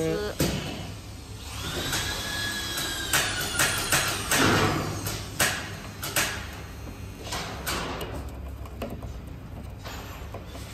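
Screwdriver clicking and scraping on the metal screws of a wrapping machine's small air cylinder as they are loosened, with scattered light metal taps and a short squeal about two seconds in.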